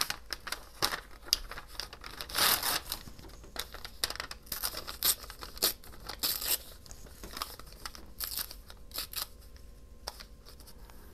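Paper being torn and handled by hand: irregular short rips and crinkles, with a longer rip about two and a half seconds in.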